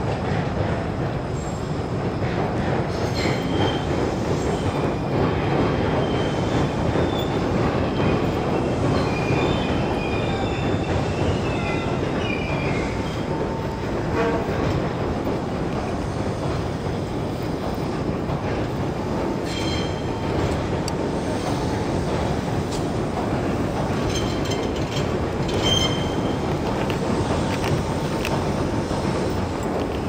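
Steady, loud outdoor city noise, a continuous rumble with a few short high squeals in the first half and again later on.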